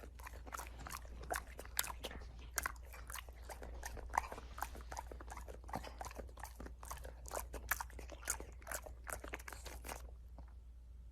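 A dog chewing something crisp: irregular crunches, several a second, that stop about ten seconds in, over a faint low hum.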